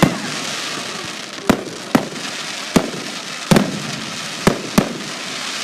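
Fireworks shells bursting in a series of about seven sharp bangs at uneven intervals, over a steady hiss.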